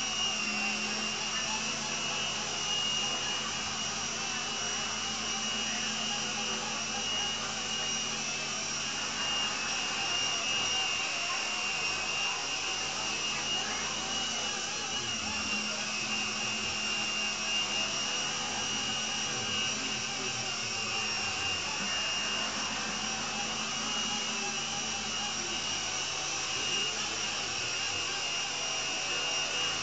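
Small electric RC helicopter running: a steady high motor whine over the buzz of the main and tail rotors.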